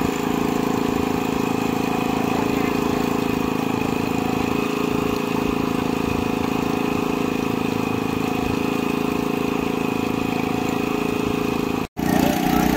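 An engine aboard a fishing boat running steadily, with a constant even hum. The sound cuts out for an instant near the end, then the same hum returns.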